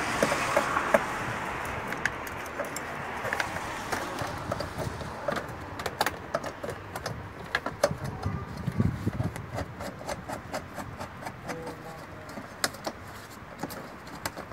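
Irregular light metallic clicks and clinks of hand tools working on an LPG filter housing as the filter is removed, over a hiss that fades away during the first few seconds.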